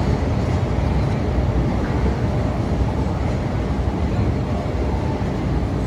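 Steady low rumble of downtown street noise and heavy machinery, with no clear single event standing out.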